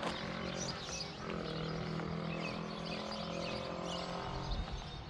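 Outdoor ambience: a steady low hum, with the pitch shifting slightly about a second in, under scattered chirps of songbirds.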